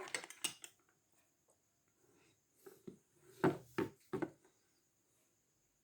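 Handling noise from a compact trimmer router and its power cord: light clicks at the start, then a few knocks and rubs against a surface, the loudest a little past the middle.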